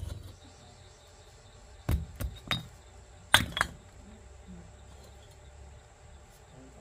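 Several sharp clinks and knocks of hard objects striking one another: three quick ones about two seconds in, then a louder pair a second later.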